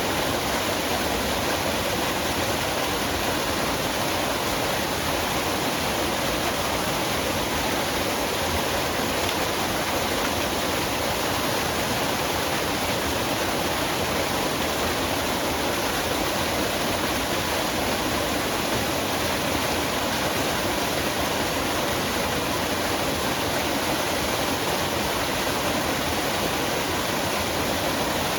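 Waterfall in a forest: water falling and rushing in a steady, unbroken roar of noise that does not change.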